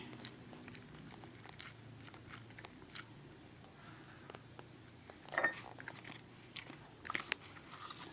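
Homemade slime being squeezed and stretched in the hands, making faint scattered wet clicks and pops, with louder clusters about five seconds in and again around seven seconds.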